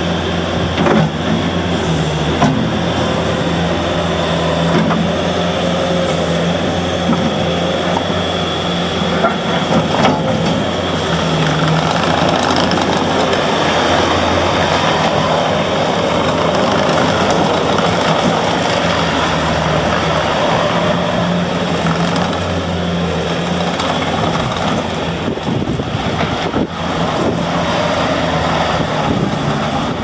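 Bobcat T650 compact track loader's diesel engine running steadily while the machine raises its bucket and drives about, with scattered clanks from the tracks and loader arms.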